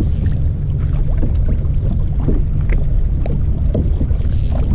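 Wind buffeting the microphone and choppy water slapping against a kayak hull, with scattered small clicks and knocks. Brief splashy hisses come at the start and again near the end.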